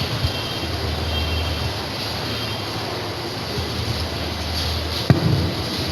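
Steady low hum with an even background hiss, and a single sharp knock about five seconds in.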